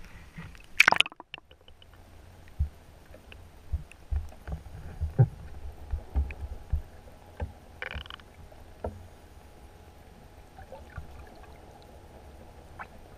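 Splash as a waterproof action camera goes into the water about a second in, then muffled underwater sound through the submerged camera: irregular dull thumps and low rumbling, with a brief bubbly hiss near the middle, fading to a quiet murmur.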